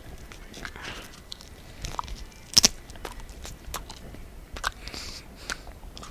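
Dried New Mexico chili peppers being chewed: scattered crunching clicks, with one sharper crack about two and a half seconds in.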